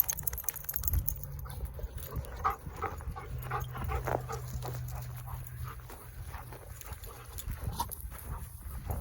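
Dog giving a series of short whines, thickest in the middle of the stretch.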